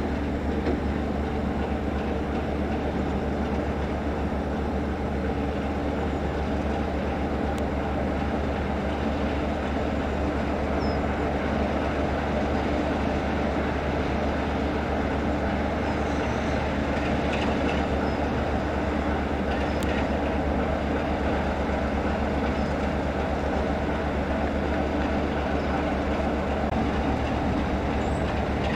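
Class 33 diesel-electric locomotive's Sulzer eight-cylinder engine running steadily, with a few faint clicks partway through.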